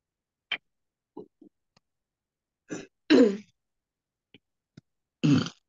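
A person clearing the throat several times in short bursts, the loudest about three seconds in and near the end, heard over a video call with dead silence cut in between.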